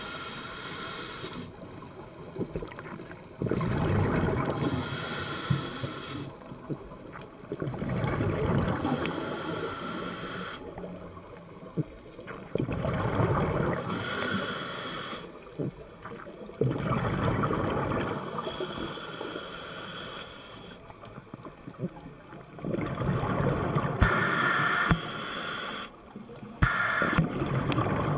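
Scuba diver breathing through a regulator underwater: each inhale hisses through the demand valve and each exhale comes out as a rush of bubbles. The cycle repeats about every four to five seconds, some six breaths in all.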